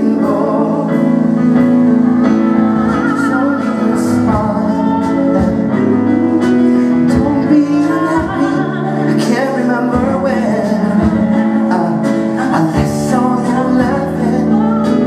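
Music: a slow song with a singing voice over instrumental accompaniment.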